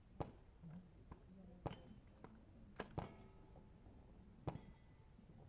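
Faint, scattered sharp gunshot reports from elsewhere on a shooting range, about half a dozen at irregular intervals. One is followed by a short metallic ring, like a steel target being hit.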